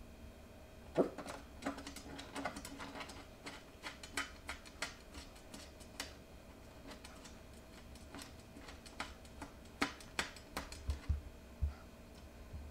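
Shih Tzu puppy's claws tapping against mirror glass: irregular clicks, in a quick flurry about a second in and again near the end.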